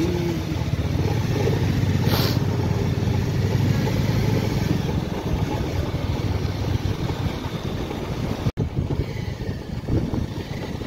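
Motorcycle engine running steadily while riding along a road, with road and wind noise. The sound cuts out for an instant about eight and a half seconds in.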